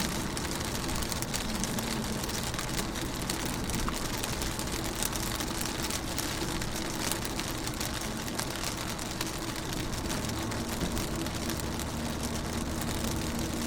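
Rain on a window: steady patter of many raindrops tapping the glass, over a steady low rumble.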